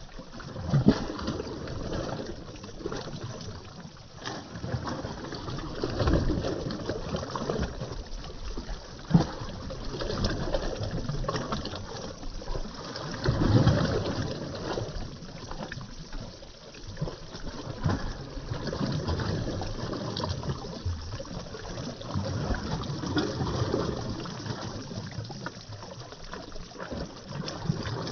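Small wind-driven lake waves lapping and splashing against a grassy, muddy shore. The wash swells and fades every few seconds, with a couple of sharper slaps.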